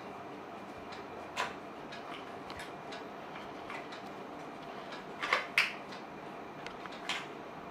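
Small white cardboard product box being pried open by hand: four short clicks and rustles of the card, the loudest pair about five and a half seconds in, over a faint steady room hiss. The box is tough to open.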